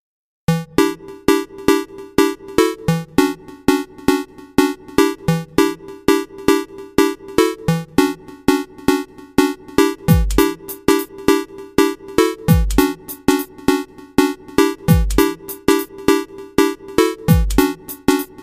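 Electronic background music: short staccato synth notes at about four a second, with deep falling bass hits joining about ten seconds in and recurring every couple of seconds.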